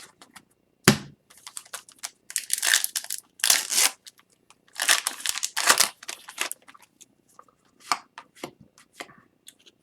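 Foil trading-card pack wrapper crinkling and tearing as it is opened, in several bursts, after a sharp tap about a second in.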